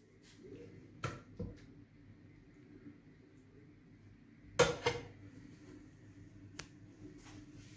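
A serving spoon knocking against a glass plate and a serving bowl while sauce is spooned over rice. There are a few sharp clinks: two light ones about a second in, a louder pair a little after halfway, and one more later.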